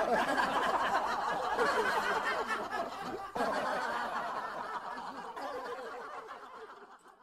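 People laughing and chuckling, fading out near the end.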